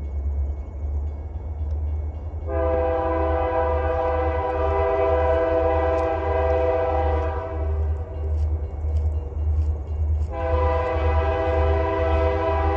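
Diesel locomotive air horn on an approaching Lake State Railway freight train, sounding two long blasts, the first about two and a half seconds in lasting about five seconds, the second starting about ten seconds in and still sounding. A steady low rumble lies underneath.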